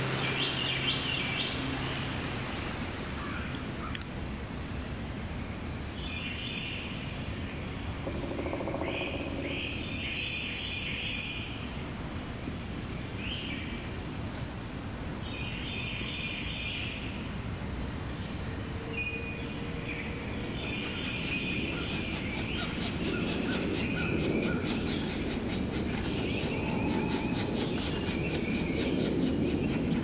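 A steady high-pitched insect drone, with short clusters of bird chirps every few seconds, over low outdoor background noise.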